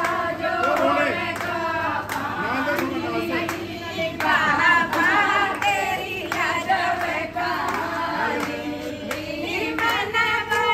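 Several voices singing together to steady hand clapping, about two claps a second.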